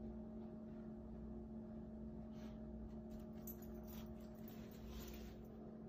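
Quiet room tone with a steady low hum and a few faint ticks and rustles.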